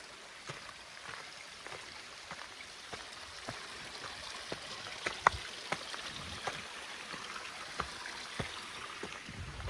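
Forest stream running steadily, with irregular sharp clicks and taps over the flow; the loudest comes about five seconds in.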